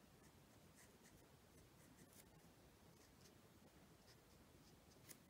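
Near silence with faint, short scratchy strokes of an alcohol marker's tip being drawn across cardstock, coming irregularly every second or so.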